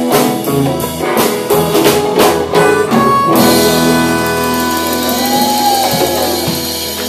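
Live folk-blues band with banjo, electric guitars, bass and drum kit playing the end of a song. The drums hit in rhythm until about three seconds in, then a held final chord rings out and slowly fades.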